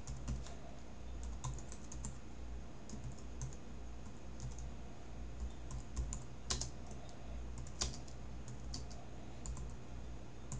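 Computer keyboard being typed on in short runs of keystrokes with brief pauses, with a couple of sharper key hits in the middle. A low steady hum runs underneath.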